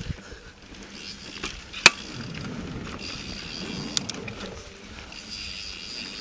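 Yeti SB4.5 mountain bike rolling over a dirt trail: steady tyre and drivetrain rattle, with one sharp clack about two seconds in and a lighter one about two seconds later.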